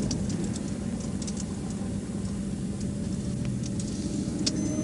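A vehicle engine idling with a steady low hum under the noise of highway traffic going by, with scattered light clicks.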